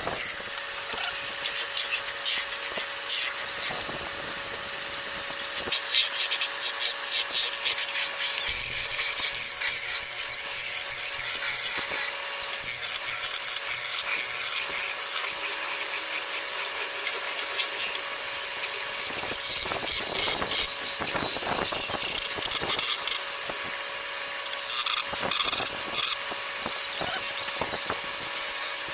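A tool working wood: repeated irregular scraping and rubbing strokes, with a faint steady hum underneath.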